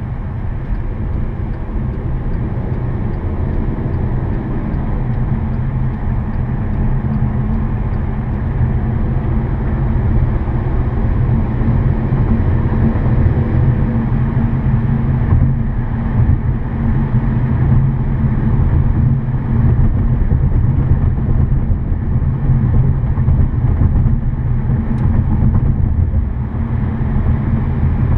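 Cabin noise inside a 2014 Volkswagen Passat 1.8T cruising at highway speed: a steady low rumble of road and engine noise, getting a little louder about ten seconds in.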